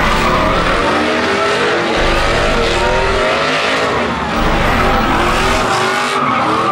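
Pickup trucks doing burnouts: V8-type engines held at high revs, wavering up and down, over the hiss and squeal of rear tyres spinning on pavement.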